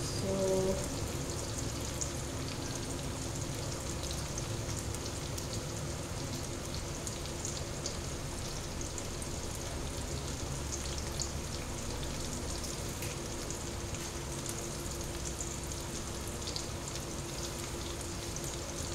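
Garlic and tomato tadka frying in hot oil in a pan: a steady sizzle with scattered small crackles.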